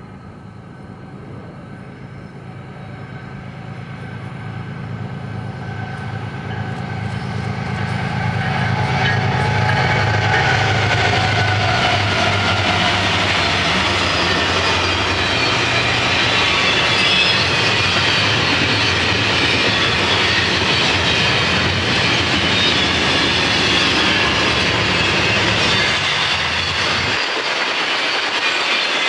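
Union Pacific double-stack container train approaching and passing. The diesel locomotives' low engine drone grows louder over the first eight seconds or so, then the steady rush and clatter of wheels on rail from the passing well cars takes over. The low drone cuts off abruptly near the end.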